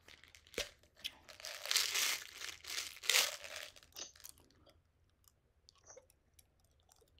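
Chewing gum close to the microphone: wet smacking and clicking mouth noises, busiest in the first three seconds with a couple of louder stretches, then fainter and sparser.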